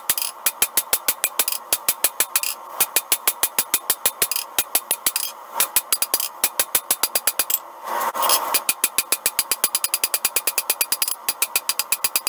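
Hammer striking a red-hot iron bar on a steel anvil in fast, even blows, about six a second, in runs broken by short pauses.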